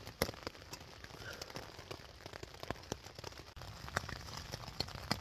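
Rain falling on a tent, heard from inside: scattered, irregular drops tapping on the fabric over a soft hiss.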